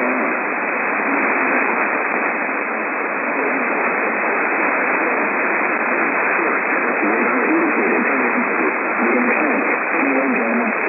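Heavy static hiss from weakly received radio, sounding thin like a telephone line, with a faint voice now and then barely audible beneath it, most in the second half.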